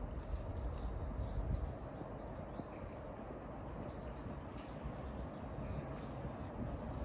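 A small bird sings twice, each time a short run of quick, high, slightly falling notes, once about a second in and again near the end. Under it runs a steady low outdoor rumble.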